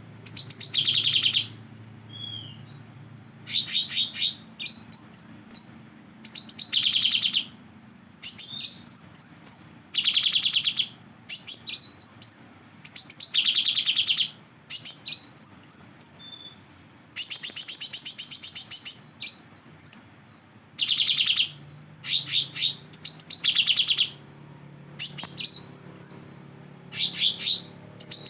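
Cucak daun (leafbird) singing in repeated bursts: short whistled, bending notes alternating with fast chattering trills. The song is filled with mimicked cucak jenggot calls, and there is one longer rattling trill about two-thirds of the way through.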